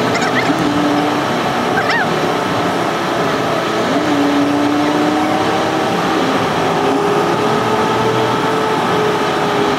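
Road and engine noise heard from inside a moving car: a loud, steady rush with a few held tones that shift slowly in pitch.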